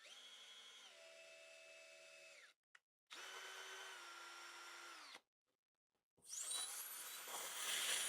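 Power drill running in three bursts, a steady motor whine that starts and stops, the last one louder and spinning up with a rising whine; it is cutting new threads into the bolt holes of a motorcycle tail-tidy bracket.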